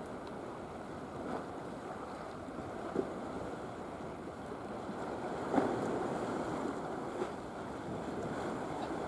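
Steady wash of wind and sea waves, with three brief faint knocks partway through.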